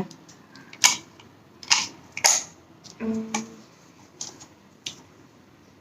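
Sharp plastic clicks and taps from handling a wireless mouse and its USB receiver, about half a dozen separate clicks, with a short low hum about three seconds in.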